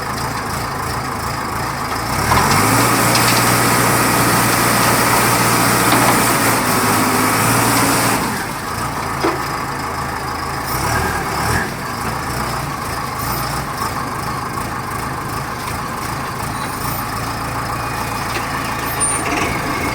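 Self-loading concrete mixer's diesel engine running, raised to a higher steady speed about two seconds in and held there for about six seconds, then dropping back to a lower running speed.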